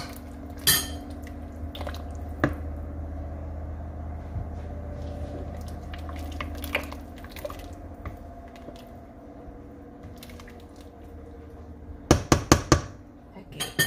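Wooden spoon stirring thick beef stew in a stainless steel pot: wet squelching and sloshing with scattered scrapes and light knocks against the pot. Near the end the spoon is knocked sharply against the pot about five times in quick succession.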